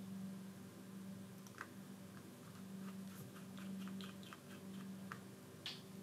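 Small light clicks and ticks of a precision screwdriver and tiny screws being driven into a tablet's internal metal plate, a run of them starting about a second and a half in, the loudest near the end. A low steady hum runs underneath.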